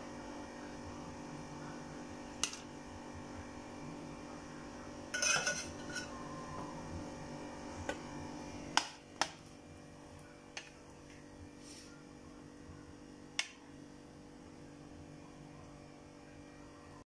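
A serving spoon clinks and taps against a metal pot and a ceramic plate while rice is spooned out: about half a dozen separate clinks, with a short cluster about five seconds in. A steady low hum runs underneath.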